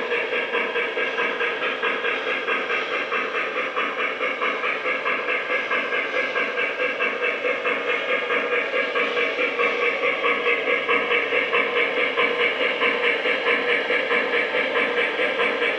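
O gauge model logging train running along the layout track: a steady motor and gear hum with an even rhythmic beat of about three to four pulses a second, a little stronger in the second half.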